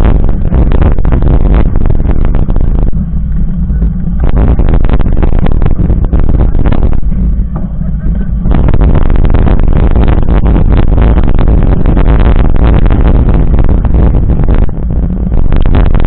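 Wind buffeting the microphone of a camera on a mountain bike riding a gravel road: a loud, constant low rumble with rapid rattling jolts, easing off briefly twice.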